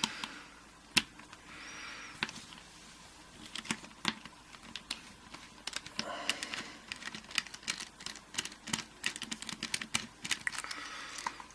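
Small metal clicks and taps of a screwdriver working on a Matlock 5025 aluminium-bodied padlock as it is taken apart. They come in scattered ticks at first and grow into a quick, irregular run of clicks after about six seconds.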